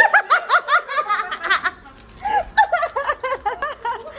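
Laughter: quick high-pitched giggles in a fast run of short repeated bursts, which thin out to slower, spaced laughs about two seconds in.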